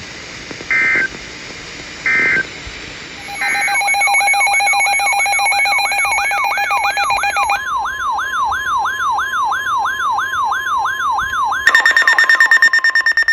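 Emergency Alert System end-of-message data tones, three short two-tone bursts, then a loud electronic alert tone. The alert tone is a steady pitch under a quickly repeated rising sweep, about three sweeps a second. It shifts to a higher, rapidly pulsing pattern near the end.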